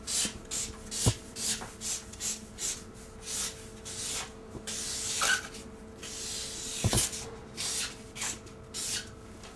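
Felt-tip marker writing on a flip-chart board: a run of short, scratchy strokes, about two or three a second, with two knocks, about a second in and about seven seconds in.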